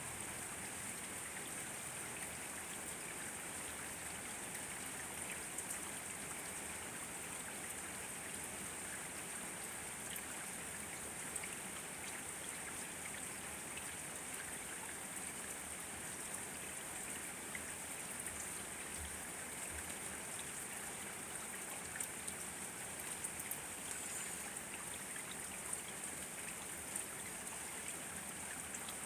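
Steady rain falling, an even hiss with scattered louder drops ticking through it.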